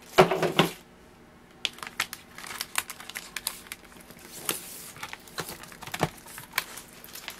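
Paper booklets, cardboard packaging and plastic-wrapped plates being gathered and shuffled by hand: crinkling and rustling with scattered light taps and clicks, and a louder rustle just after the start.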